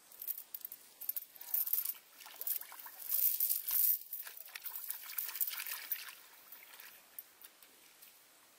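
A steel chain rattling and clinking as it is fed hand over hand down into a small muddy water-filled hole, with water trickling and sloshing in the hole. The clatter is busiest in the middle and dies away about seven seconds in.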